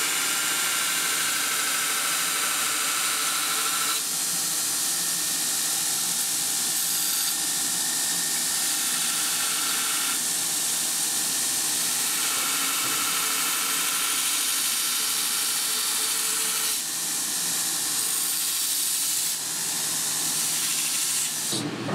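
Belt grinder running full speed with a worn 36-grit belt, grinding the tang of an 80CrV2 steel knife blade: a steady hiss and whine of steel on abrasive belt. Its tone changes abruptly a few times as the pressure shifts.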